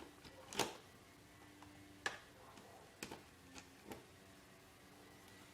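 Small screwdriver and screws clicking as screws are backed out of a laptop's plastic chassis: a few sharp, faint ticks spread out, the loudest about half a second in.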